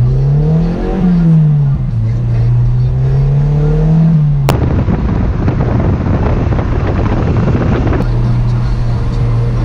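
Mazda Miata's four-cylinder engine through a RoadsterSport Race single muffler, heard from inside the cabin: its pitch rises and falls as it pulls and eases off, then it cruises at steady low revs. About halfway through, a loud rushing noise starts with a click and covers the engine for about three seconds, then stops just as suddenly.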